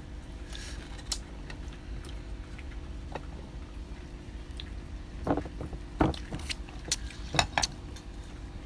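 Scattered light clicks and knocks of shells and utensils handled while eating grilled shellfish, most of them in the second half, over a faint steady low hum.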